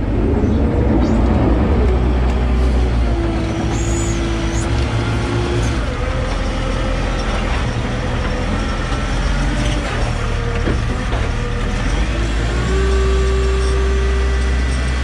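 JCB 531-70 telehandler's diesel engine running steadily, heard from inside the cab, with a whine that comes and goes as the boom and bucket are worked. About twelve seconds in the engine grows louder and a fresh whine starts.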